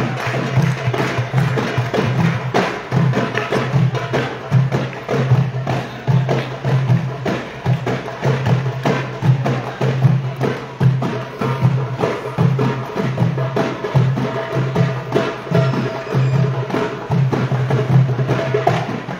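Ensemble of Egyptian hand drums, darbukas and frame drums, playing a steady rhythm: a regular beat of deep dum strokes under quick, sharp tak strokes.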